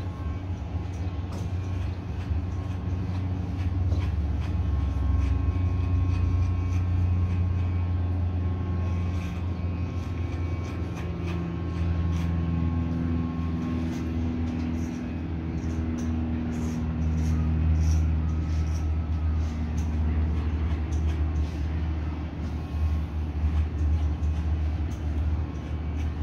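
Corded electric hair clippers buzzing steadily as they cut hair.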